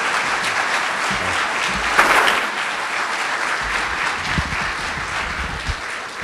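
Audience applauding steadily. Low thumps come from the lectern microphone being handled in the second half.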